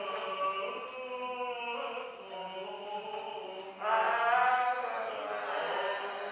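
Greek Orthodox funeral chant in the Byzantine style: a voice chanting slow, long-held notes that move in steps, growing louder about four seconds in.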